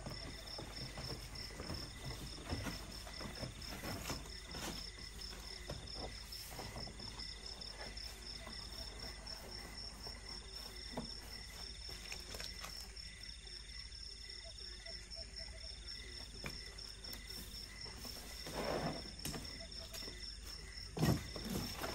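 Night insects, crickets among them, chirp steadily in a rapid, high pulsing trill. Over it come the rustle and crackle of a foam sleeping mat being shaken out and laid down, with footsteps on dry leaves, growing louder near the end.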